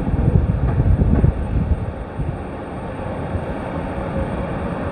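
Steady jet-engine noise from aircraft taxiing on the apron, with a faint steady whine. Wind buffets the microphone with gusty low rumbles for about the first second and a half.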